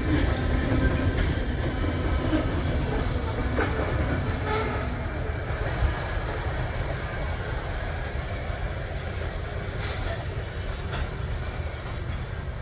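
Loaded coke train's freight cars rolling past and away, a steady rail rumble with occasional wheel clicks that slowly fades.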